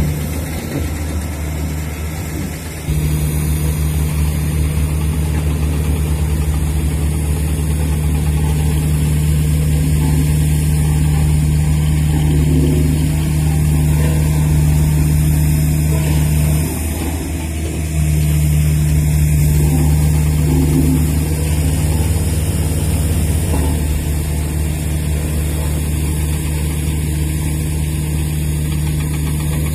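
Heavy diesel engines of a Hino 500 dump truck and a crawler bulldozer idling, a steady low drone. The sound changes abruptly about three seconds in and drops briefly a little past the middle.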